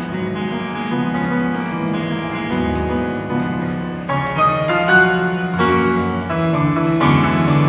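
Instrumental background music led by piano.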